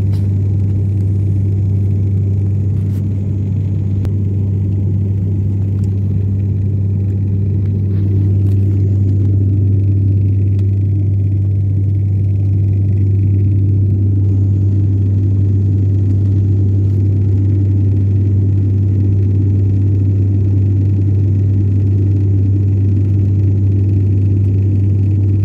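Steady low drone of an airliner cabin in flight: engine and airflow noise with a deep, even hum, rising slightly in loudness about eight seconds in.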